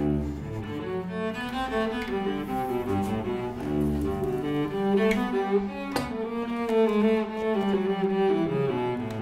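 Bowed cello music, a melody moving from note to note with several notes sounding together.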